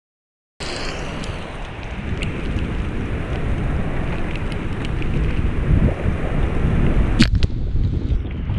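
Strong wind buffeting the microphone in a thunderstorm downpour, with heavy rain and scattered drops ticking close by. A single sharp crack comes about seven seconds in.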